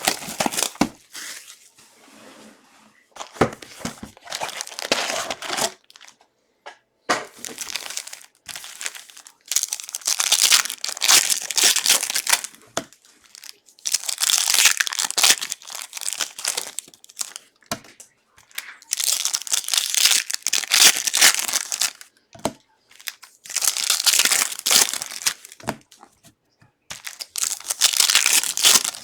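Plastic wrapping of a 2022 Contenders football trading card box and its packs being torn open and crinkled, in repeated bursts of a second or two with short pauses between.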